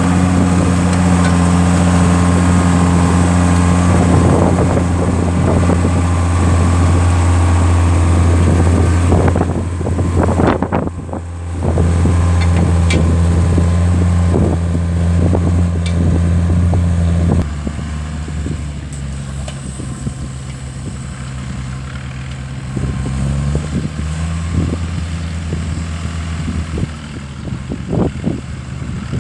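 Tractor engine running steadily at a constant speed; about two-thirds of the way through it drops to a lower, quieter note and keeps running.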